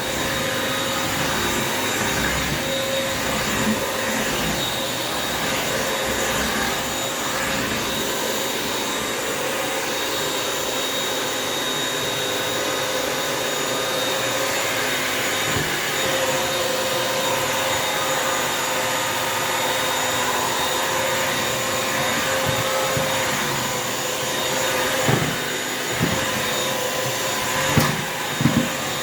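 Bissell wet-dry vacuum mop running steadily, a constant motor whine over its suction noise, with a few knocks near the end.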